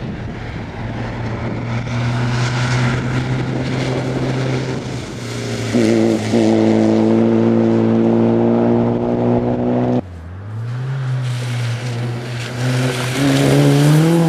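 Škoda 120 rally car's four-cylinder engine running hard at high revs as it passes. About ten seconds in the sound cuts off abruptly, then the revs climb again and hold before dropping near the end.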